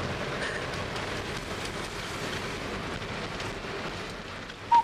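Steady road and engine noise inside the cabin of a moving Toyota HiAce van. Near the end a short, louder high note cuts in as music starts.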